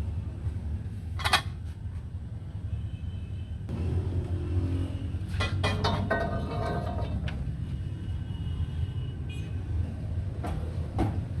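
Steady low mechanical rumble, like an engine running, with sharp knocks about a second in, a cluster of them around the middle, and one more near the end.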